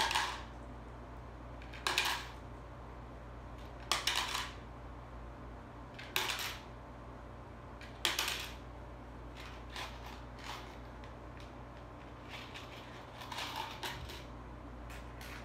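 Pennies dropped one at a time through the slot of a plastic coin bank, each landing with a sharp metallic clink and a short rattle, five in a row about two seconds apart, followed by a few fainter clinks and knocks.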